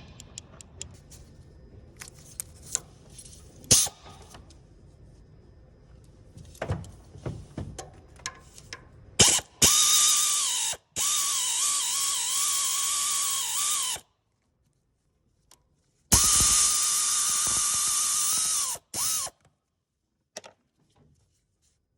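Small clicks and knocks of hand tools on metal. Then a cordless power drill-driver runs twice, about four and a half seconds and then about three seconds, with a steady whine whose pitch dips briefly under load.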